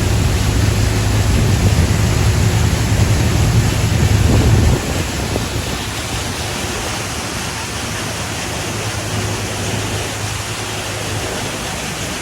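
Steady rush of water and wind aboard a moving tour boat, with a low engine rumble underneath that drops off suddenly a little before halfway.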